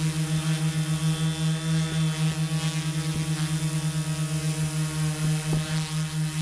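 Tarot Iron Man 650 quadcopter's Turnigy Multistar brushless motors and propellers, heard from the onboard camera, holding a hover. A steady, loud hum that wavers in a fast, even pulse, with a few faint clicks.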